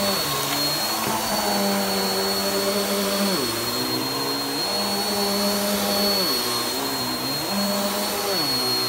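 Stick vacuum cleaner running on a rug, with a steady high whine. Its low hum drops in pitch and comes back up several times.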